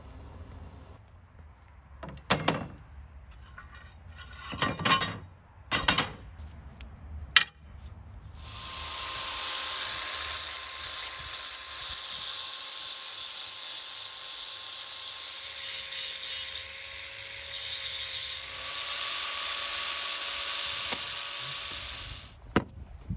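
Handheld angle grinder cutting steel strips: a steady loud, high grinding noise with a held motor whine, starting about eight seconds in and cutting off shortly before the end. Before it, a few short knocks and scrapes.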